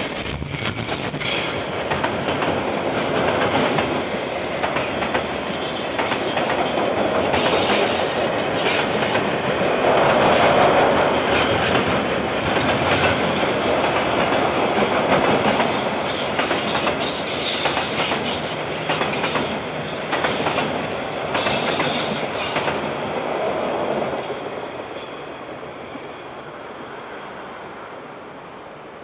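Container freight train wagons rolling past on the rails, wheels clattering over the joints, heard through a security camera's microphone. The noise dies away in the last few seconds as the end of the train passes.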